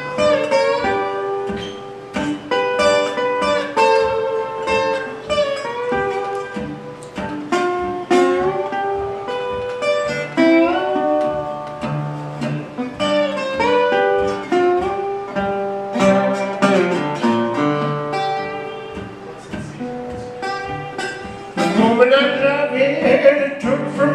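Metal-bodied resonator guitar played in a country-blues style, single plucked notes and chords with pitches sliding between notes. A singing voice joins near the end.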